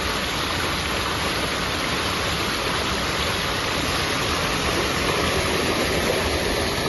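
Water rushing steadily through a narrow channel, an unbroken flowing noise.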